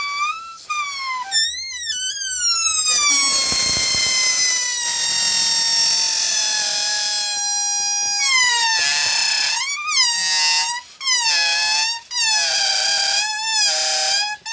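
Air squeezing out through the stretched neck of a rubber balloon, giving a high squeal. In the middle it holds one long, slowly falling note, then it turns into a wavering, warbling squeal broken by several short gaps.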